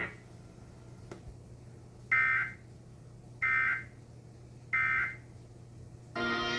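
EAS end-of-message data tones: three short bursts of the digital two-tone warble, about 1.3 seconds apart, which signal the end of the alert.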